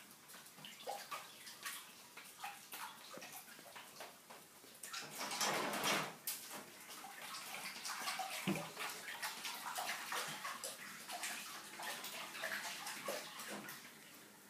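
Hands splashing and sloshing in a kitchen sink full of washing-up water, with scattered small clinks and knocks of dishes. The water sound grows louder about five seconds in, and there is a short dull knock a few seconds later.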